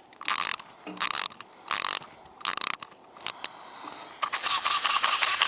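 Wind-up toy shark's clockwork being wound by its key: a run of ratcheting clicks in strokes a little under a second apart. About four seconds in, the spring motor is let go and runs with a fast, even ticking.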